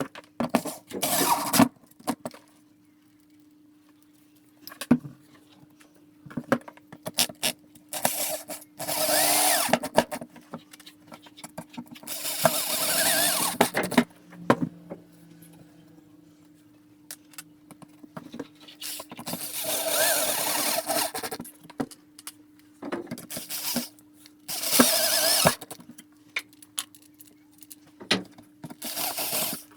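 Power drill run in about five short bursts of one to two seconds each, with clicks and knocks of handling between them and a steady low hum underneath.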